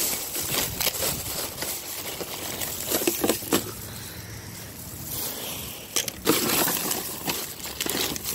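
A thin plastic trash bag and boxed, blister-packed items rustling and crinkling as a gloved hand rummages through them, with scattered clicks and knocks of packaging. It is quieter in the middle and busier again from about six seconds in.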